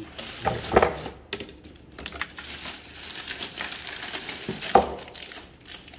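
Clear plastic bag crinkling and rustling as it is handled and rummaged through, with small parts clicking inside it. Two louder knocks stand out, about a second in and again near the end.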